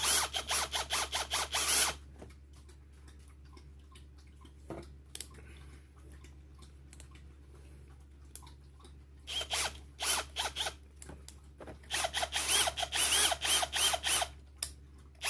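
Metal keyless chuck of a Bosch 18V hammer drill being twisted by hand, ratcheting in rapid clicks: a bout at the start, then two more in the second half after a quiet pause.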